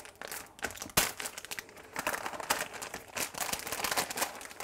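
Shiny plastic surprise bag crinkling and rustling as hands open and handle it, with irregular crackles and a sharp crackle about a second in.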